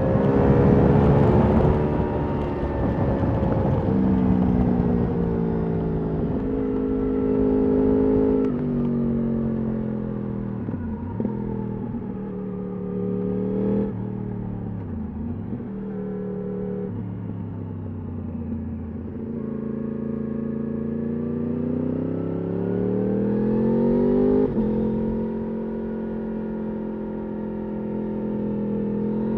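Yamaha R1 RN22's crossplane inline-four engine through an Akrapovič exhaust, heard while riding, with the revs repeatedly climbing and dropping through gear changes. There are two quick dips in revs near the middle and a long climb that drops off sharply about 24 seconds in, and the revs rise again at the end.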